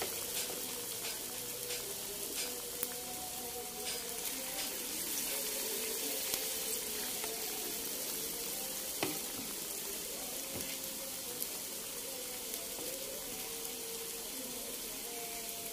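Battered fermented-cassava (tape) fritters deep-frying in hot oil in a wok: a steady sizzle with scattered small pops.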